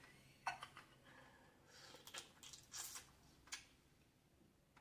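Faint eating sounds of blue crab being picked and chewed: several short, quiet crunches and clicks, spaced out over a few seconds.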